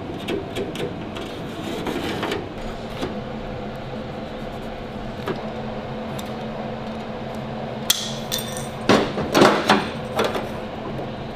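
Tin snips clicking through a sheet-steel repair patch, then a quick run of sharp metal knocks and clanks about eight to ten seconds in as the patch is worked. A steady low hum runs underneath.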